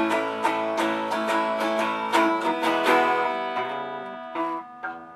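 Acoustic guitar strummed in an instrumental break with no singing. About three seconds in the strumming thins out to a few single plucked notes that fade away.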